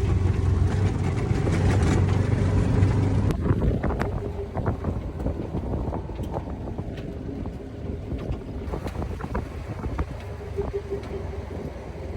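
Engine rumble with wind buffeting the microphone, loudest for the first few seconds and then easing, with scattered clicks and knocks.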